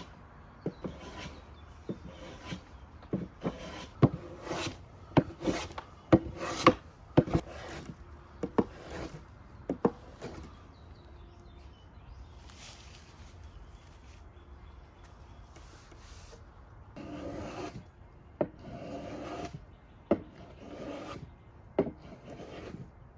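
Hand tool cutting the edge of a weathered cypress board: a run of short, sharp scraping strokes, a quieter pause, then a few longer rasping strokes near the end.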